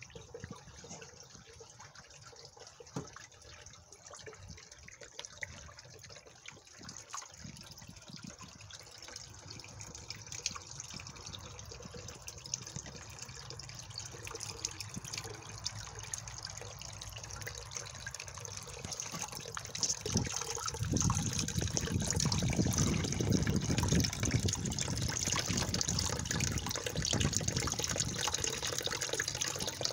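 Small garden fountain: water trickling and splashing over rocks in a steady flow, growing louder and fuller about two-thirds of the way in.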